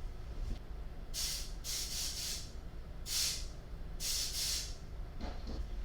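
Short puffs of air blown through the flint tube of an Elgin American automatic lighter, four hissing blasts, to clear out the debris left from unblocking it.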